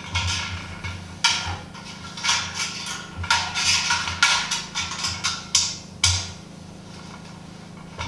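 Small flat wrench clicking and scraping on a nut and bolt as it tightens a bracket onto a metal brewing kettle: a run of sharp metallic clicks and knocks that stops about six seconds in.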